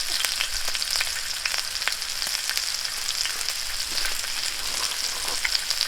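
Pork sizzling in hot fat on a grill, a steady hiss with frequent small pops and crackles of spitting fat.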